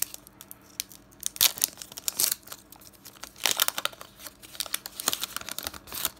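Foil wrapper of a Pokémon TCG booster pack being torn open and crinkled, then the cards are slid out of it. The sound is a run of sharp, irregular crackles in several bunches.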